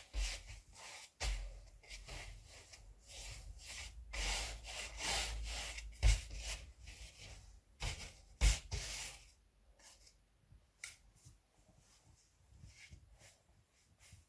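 Stiff piassava broom sweeping snow off a backhoe loader's cab and bodywork: a quick run of brushing strokes, several a second, fainter after about nine seconds. Two sharper knocks stand out in the middle.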